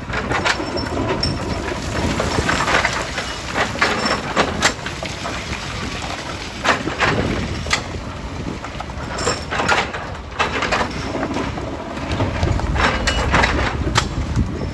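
Heavy machinery working rock: sharp knocks and cracks of stone at irregular intervals over a steady low engine rumble.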